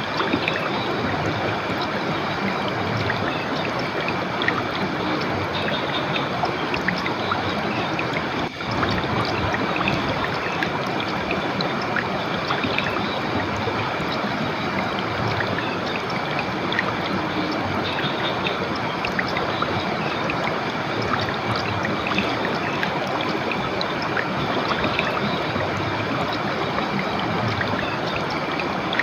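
Clear river water rushing steadily over rocks, a continuous even rush.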